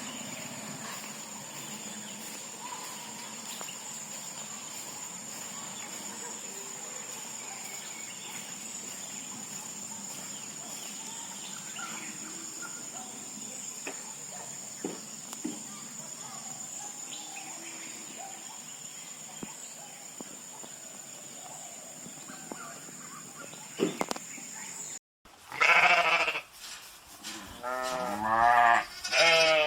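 A steady hiss with a thin, high, steady whine, then after a sudden cut, farm sheep or goats bleating loudly several times in quavering calls.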